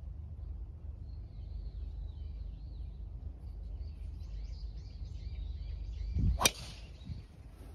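A golf driver striking a teed ball: one sharp, loud crack about six and a half seconds in, over a steady low outdoor rumble.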